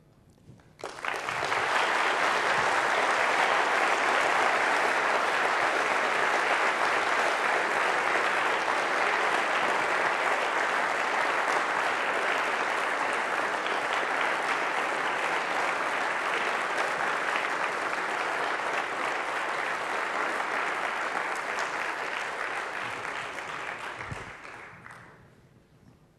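A large audience applauding. It starts about a second in, holds steady for over twenty seconds and dies away near the end.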